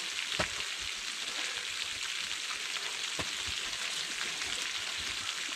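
Rainwater running over the granite of a mountain rock slide, a steady hiss. A couple of short knocks sound through it, about half a second in and again about three seconds in.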